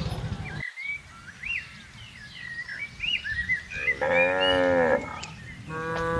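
Cow mooing twice: a short call about four seconds in, then a longer one starting near the end, each sliding slightly down in pitch. Small birds chirp in between.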